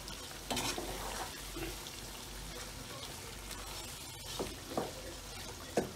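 Chicken masala of onion and tomato frying in a pot while it is stirred with a wooden spoon. A steady sizzle, with a few short, louder strokes of the spoon in the pot.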